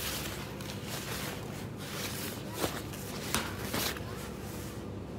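Steady background ambience of a supermarket: a low hum with a faint steady tone. A few short, sharp knocks or clicks come about two and a half, three and a half and almost four seconds in.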